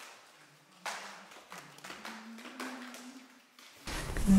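Footsteps going down a staircase and across a hard floor, a few separate taps. Near the end someone starts humming a tune loudly.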